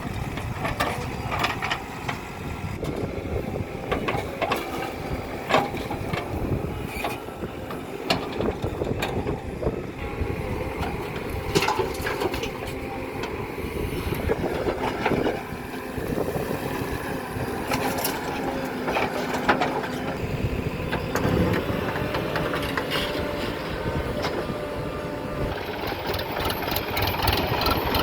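Diesel engine of a JCB loader running steadily, with frequent sharp clanks and knocks scattered throughout.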